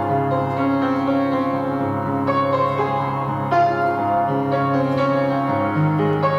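Slow, gentle piano music: sustained chords with new notes struck every second or two.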